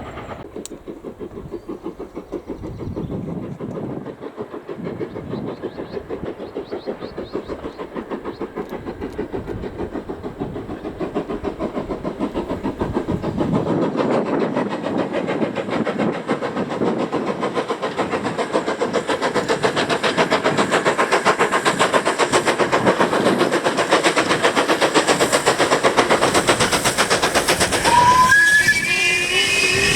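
Steam locomotive running, its rapid rhythmic exhaust beats growing louder through the middle. Near the end its steam whistle sounds, a chord of several tones that rises slightly in pitch.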